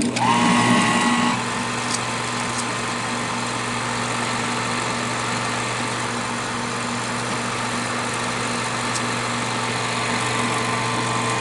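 Kodak Pageant MK-5 16 mm film projector running in reverse. Its motor and fan start suddenly with a brief whine, then settle into a steady whirr.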